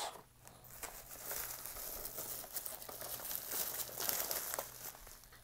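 Packing material being crumpled and rustled by hand while a boxed diecast model is dug out of a shipping box: a steady crinkling crackle that fades near the end.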